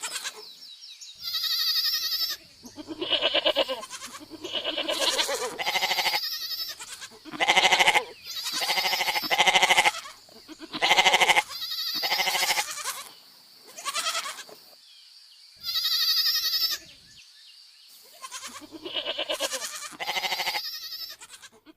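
Goats bleating over and over, about a dozen separate calls one after another, each a quavering bleat of around half a second to a second.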